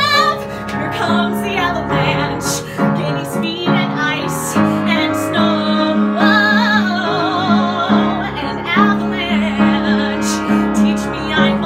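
A woman singing a musical-theatre song solo with strong vibrato over a piano accompaniment; a long held high note breaks off at the very start and gives way to shorter, softer phrases.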